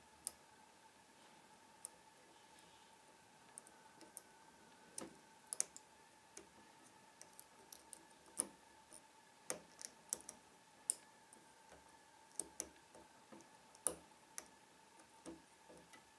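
Lock pick clicking and scraping against the pins inside a Trioving 5632 padlock during single pin picking: a quiet, irregular run of sharp metal clicks, some much louder than others.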